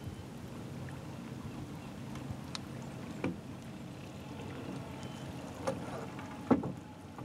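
Small motorboat's engine running steadily at low speed as the boat approaches, with a few sharp knocks over it, the loudest about six and a half seconds in.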